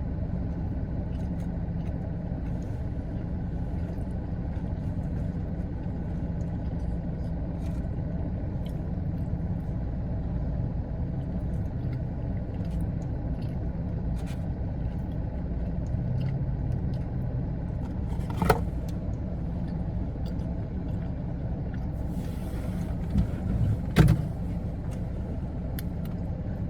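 Steady low rumble of a car's cabin with the engine idling, with a couple of sharp clicks or knocks about two-thirds of the way through.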